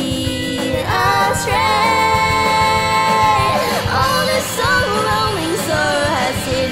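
A song with a solo singing voice over instrumental backing: a long held note about a second in, then shorter notes that slide up and down.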